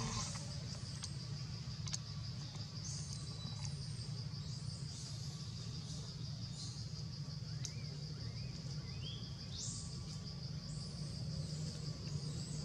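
Outdoor ambience: a steady high pulsing insect drone with short high chirps scattered through, some sliding upward, over a low steady rumble.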